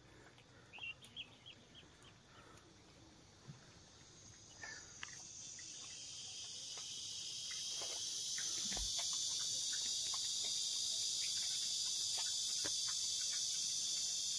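Cats crunching dry kibble in faint scattered clicks, under a steady high-pitched insect chorus that fades in about five seconds in and then holds as the loudest sound.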